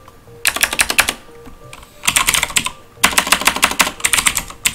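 Typing on a computer keyboard: three quick runs of keystrokes, two short ones and a longer one from about three seconds in.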